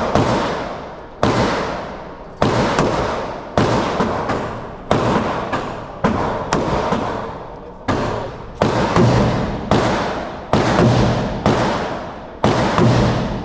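Gunfire: about a dozen sharp shots, roughly one a second and sometimes two close together, each ringing out in a long echoing tail.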